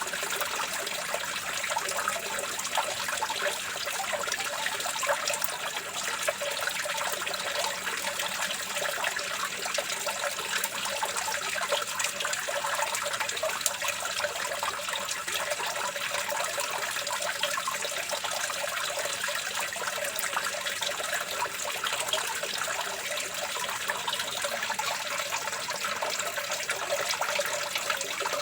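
Water running and trickling steadily, a light, even splashing with little deep rumble.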